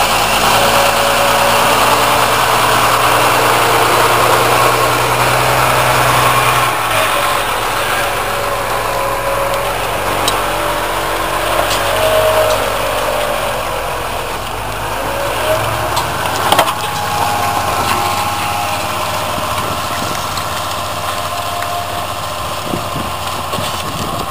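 County four-wheel-drive tractor's diesel engine working under load as it pulls a multi-furrow plough past, the engine note stepping lower twice and the sound easing off as it moves away. A brief knock about two-thirds of the way through.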